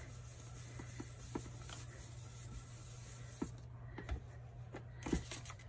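Faint rubbing of a foam-domed blending brush swirled over cardstock and pressed on an ink pad, with a few soft taps, over a steady low hum.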